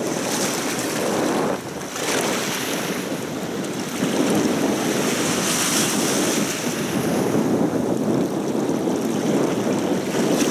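Wind buffeting the microphone over choppy river water, a steady rushing noise with no engine note.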